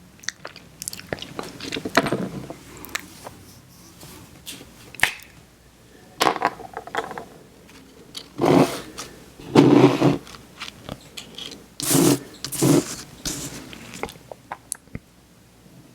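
Close-miked scraping and crunching: a series of separate bursts, some brief clicks and some about half a second long, the loudest cluster in the second half.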